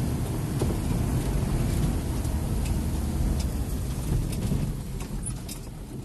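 Shuttle van riding down a narrow, cracked mountain road, heard from inside the cab: a steady low rumble of engine and tyres with scattered light clicks and rattles. The rumble eases off about five seconds in.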